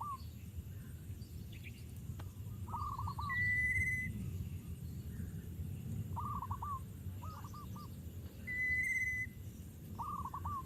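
Wild bird calls. A high, steady whistle, each under a second long, comes three times about five seconds apart. Short runs of three or four quick, lower notes fall in between, all over a low, steady background rumble.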